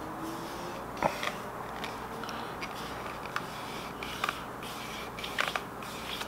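Vinyl wrap film and its paper backing being handled and smoothed around an antenna by hand, giving scattered small crackles and ticks over a steady hiss.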